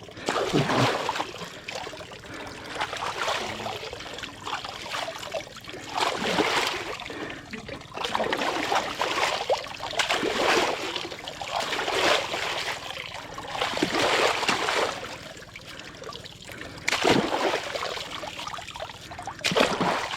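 Water splashing and trickling in repeated surges every two to three seconds.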